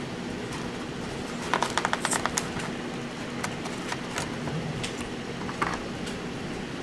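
A quick run of small plastic clicks and crackles about a second and a half in, then a few scattered single clicks, as a small plastic salsa cup is handled at a styrofoam takeout box. A steady low hum runs underneath.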